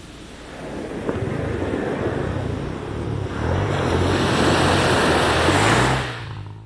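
Ocean surf washing onto the shore, swelling louder about halfway through, with wind rumbling on the microphone; the sound fades out near the end.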